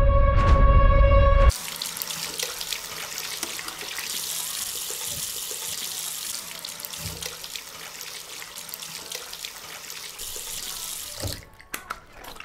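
Loud music with steady held tones and a heavy low throb cuts off abruptly about a second and a half in. Water then runs from a bathroom tap into a ceramic washbasin, a steady splashing hiss that stops near the end.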